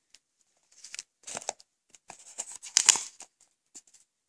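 Duct tape crinkling and rustling as fingers press and smooth a tape flap down onto a cardboard tape roll, in short irregular rustles, the loudest about three seconds in.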